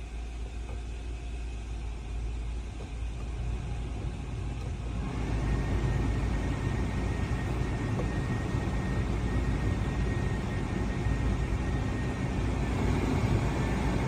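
Toyota 4Runner's climate-control blower fan speeding up: a steady rush of air over a low hum, jumping to a louder, fuller rush about five seconds in with a faint high whine, and growing a little louder again near the end.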